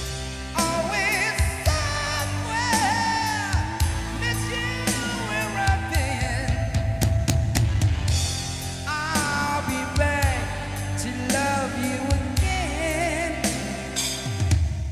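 A rock power-ballad backing track with drums, and a man singing over it through a handheld microphone.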